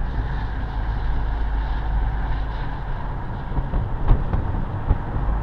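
Road and engine noise inside the cabin of a moving Nissan car: a steady low rumble with a hiss over it, and a couple of short knocks about four seconds in.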